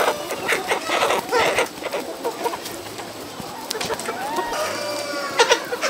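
A large flock of chickens clucking and calling, with many short calls overlapping and a few drawn-out ones.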